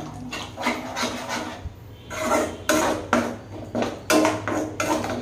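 Slotted metal spatula scraping and stirring a thick masala-curd gravy in a non-stick kadai, in repeated strokes. The strokes ease off around a second and a half in, then come about twice a second.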